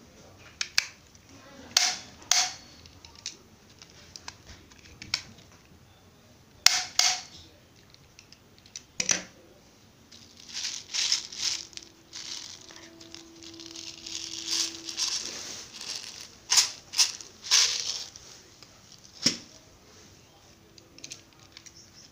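Sharp plastic clicks and snaps from a toy double-barrel airsoft gun being handled and broken open, several in quick pairs. In the middle comes a longer stretch of rattling and clicking as a small plastic bottle of BBs is handled.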